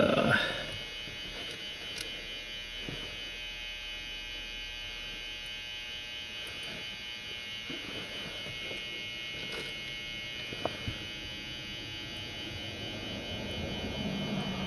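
Steady electrical buzz with a few faint, light clicks of small lock parts being handled on the bench.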